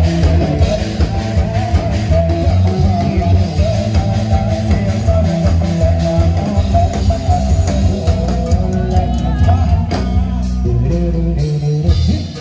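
Band playing, with guitar to the fore over bass and drums and a steady beat. The music drops away briefly just before the end.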